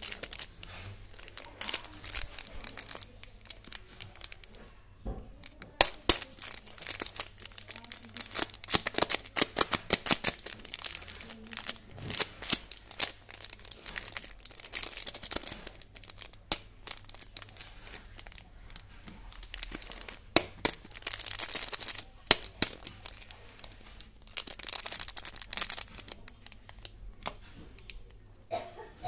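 Small plastic candy wrappers crinkling as fingers squeeze and turn the packets, in runs of crackling with a short pause about four seconds in.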